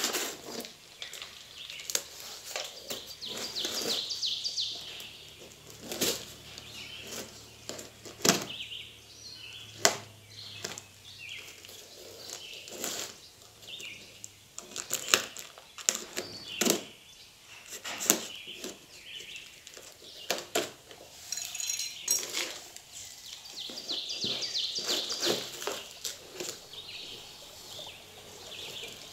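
A knife slitting the packing tape and cardboard of a taped shipping box, on and off throughout: scratchy tearing and scraping rasps with many sharp clicks and knocks.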